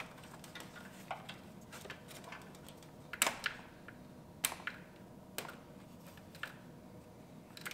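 Scattered small clicks and taps of hands and fittings as the transmission cooler lines are worked loose from the condenser, with the loudest click about three seconds in.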